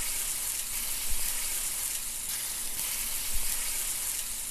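Food sizzling and frying in a hot pan: a steady crackling hiss with a couple of small pops.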